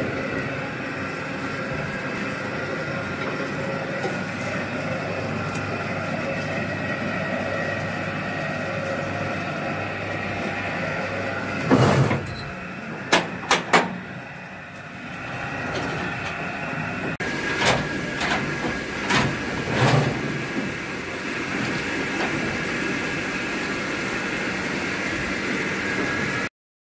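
Borewell drilling rig's motors running steadily with a hum, turning and pressing the drill pipe down into the bore. Sharp metal clanks come in a quick run about twelve seconds in and again around eighteen to twenty seconds in, as a wrench works at the pipe clamp. The sound cuts off abruptly near the end.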